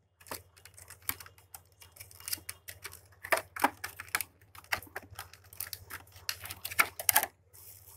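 Stiff clear plastic packaging crinkling and crackling as it is opened by hand, in quick irregular clicks and rustles.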